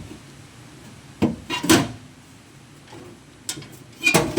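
Short clunks and clatters of sheet steel as a home-made repair panel is handled and offered up to a car's boot floor: two knocks about a second and a half in, a light tap later, and a quick run of knocks near the end.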